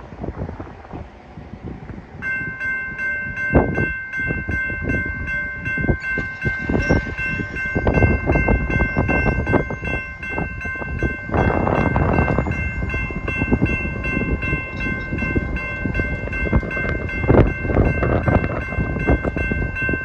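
Railroad grade-crossing warning bell that starts ringing about two seconds in and keeps ringing rapidly as the crossing activates for an approaching train, over gusty wind and road rumble.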